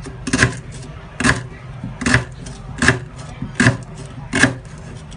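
Kitchen knife slicing a lemongrass stalk into thin rounds on a bamboo cutting board: six short, even cuts, each a sharp knock of the blade on the wood, a little under a second apart.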